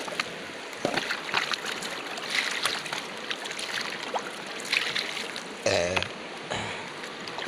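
River water flowing over rocks, a steady rushing, with a few short clicks and a brief voice-like sound about six seconds in.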